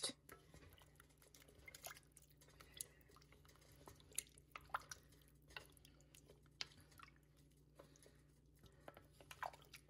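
Faint, scattered wet clicks and squelches of a spoon stirring a chunky chicken curry of potatoes and carrots in a Dutch oven.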